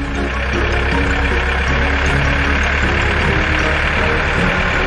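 Engine sound effect for a big tractor driving in: a loud, steady engine noise that starts abruptly and holds evenly.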